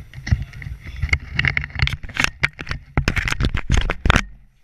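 Irregular knocks, scuffs and rubbing from a moving body-worn GoPro: footsteps on a concrete floor and gear and the camera mount jostling. The sound stops for a moment near the end.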